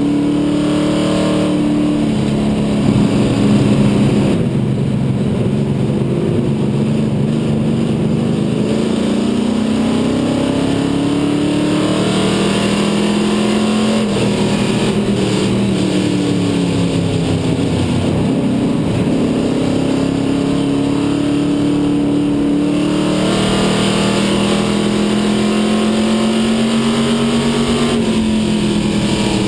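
A Dare Stock race car's engine heard from inside its cockpit at racing speed. The pitch climbs steadily as it accelerates and drops back when it lifts off, several times over.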